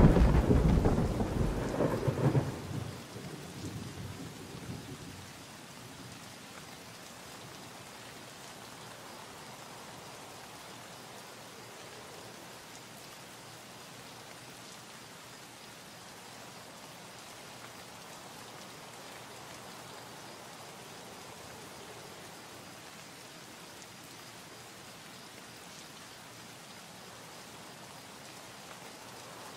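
A loud rumble at the very start that dies away over about three seconds, followed by a steady faint hiss.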